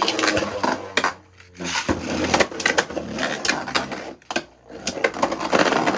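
Beyblade Burst tops Hyperion Burn and Helios Volcano spinning and clashing in a plastic Limit Break Stadium: rapid, irregular clacking hits and scraping, with two brief lulls.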